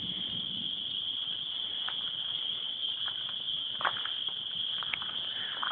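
A steady high-pitched chorus of crickets, with a few soft footsteps in the grass and leaves.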